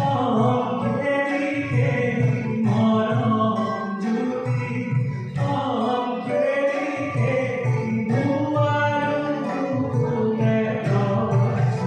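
A song with singing over instrumental backing, played through a small PA sound system.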